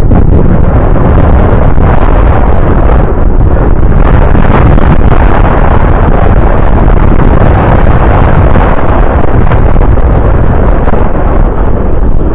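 Loud, steady wind buffeting on a cyclist's action-camera microphone while riding a road bike at speed.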